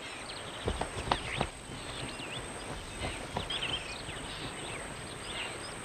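Savannah wildlife ambience: many short, high chirps and whistles of small birds, with a few sharp clicks in the first second and a half, over a steady high insect drone.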